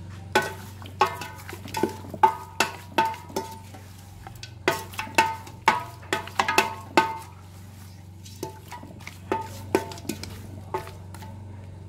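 Wooden spoon stirring raw chicken and onions in a stainless steel pressure cooker pot, knocking against the metal so the pot rings briefly with each stroke. The knocks come quickly, pause about four seconds in, then resume and thin out near the end, over a steady low hum.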